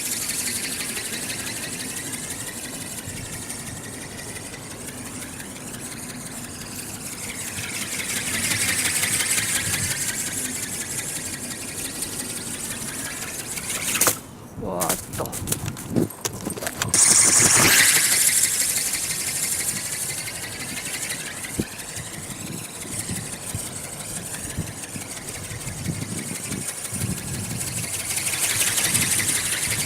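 Small geared brushless electric motor of an RC ornithopter whining in flight as it flaps its wings, swelling and fading as the model flies nearer and farther. About halfway through the whine drops out for a few seconds, broken by a few knocks, then comes back.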